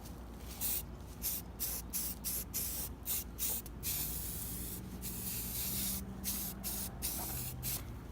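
Can of automotive primer spraying in a series of short hissing bursts, with one longer continuous spray about four seconds in.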